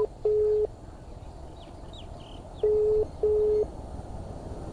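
Outgoing phone call ringing: the ringback tone heard by the caller, a steady low beep in pairs, two short beeps with a brief gap, the pair repeating about every three seconds while the call is not yet answered.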